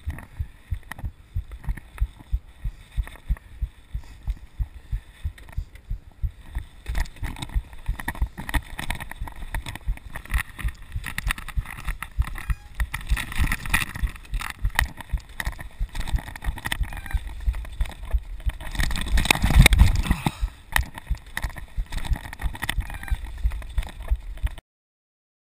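Mountain bike ridden down a rocky dirt trail: tyre noise and rattling of the bike over the ground, with wind buffeting the microphone and a loud burst about three-quarters of the way through. It opens with steady thuds about twice a second, and the sound cuts off suddenly near the end.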